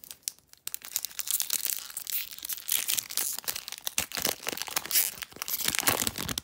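Foil wrapper of a Magic: The Gathering Kaldheim booster pack crinkling and tearing as it is pulled open by hand, a dense run of sharp crackles starting just under a second in.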